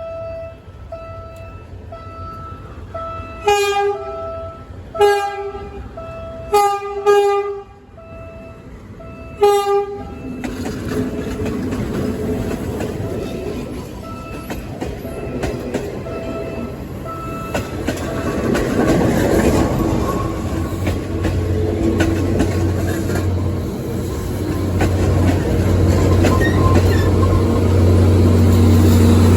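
PNR train sounding its horn in about five short blasts over a repeating beep, then approaching and passing with a rumble that grows louder, a low engine drone coming in about two-thirds of the way through.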